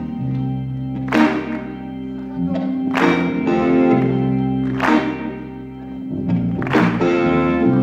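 Live rock band playing a slow piece: keyboard and electric guitars hold chords over a steady bass line, punctuated by four heavy accented hits about two seconds apart.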